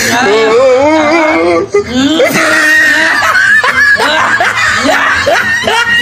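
A man's voice making exaggerated non-verbal noises: wavering, drawn-out groans at first, then a run of short rising yelps, about two a second. He is reacting to a mouthful of pomelo peel.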